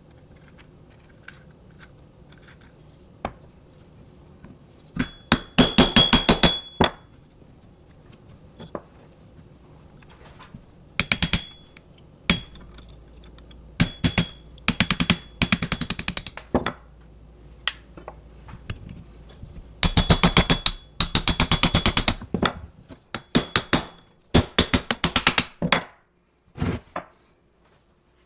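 Metal tool work: several runs of rapid, evenly spaced metallic clicks, each lasting a second or two, with a ringing metallic note through them.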